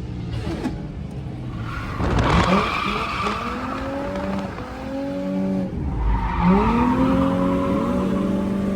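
A drift car's engine revving up and down repeatedly as it slides. Tyre squeal and skid noise join in about two seconds in.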